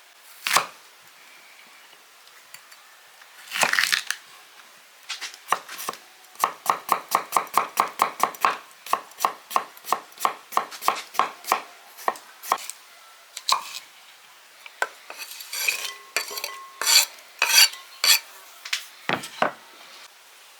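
Knife chopping food on a cutting board. Scattered single cuts alternate with a quick, even run of about five strokes a second in the middle.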